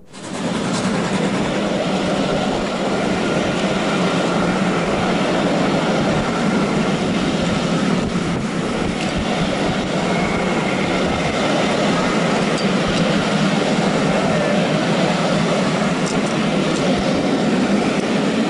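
Passenger coaches of a steam-hauled train rolling past close by: a steady rumble and rattle of wheels on the rails.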